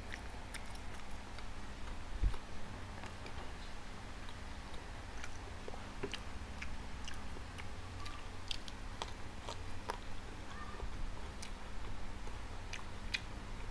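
A person chewing and biting food close to the microphone, with scattered small wet clicks and smacks from the mouth, and one low thump about two seconds in. A faint steady low hum runs underneath.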